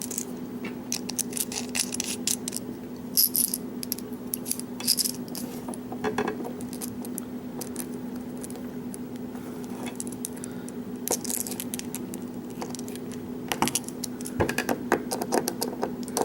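Small metallic clicks, taps and scrapes of a screwdriver working at a screw on a Schlage lock cylinder, turned clockwise, the tightening way, so it will not come loose. A steady low hum sits underneath.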